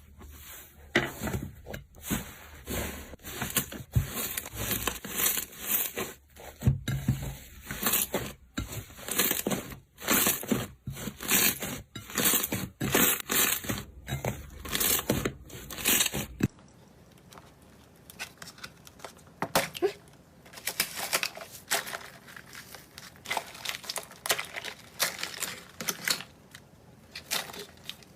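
Slime being squeezed and stretched by hand, making irregular crackling, crinkling pops. About sixteen seconds in the sound changes to quieter, thinner crackles.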